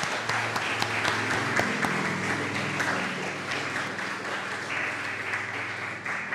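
Small congregation applauding, the clapping gradually thinning and getting quieter toward the end.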